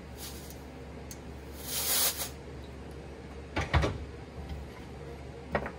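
A compressed-air blow gun gives a short hiss of about half a second into a Honda CRF450R brake caliper to push its piston out. A few sharp knocks of the metal caliper being handled follow, and another knock comes near the end.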